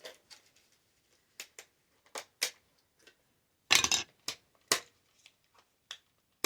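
Scattered clicks and taps of a small plastic handheld game console being handled, with a short louder clatter about four seconds in.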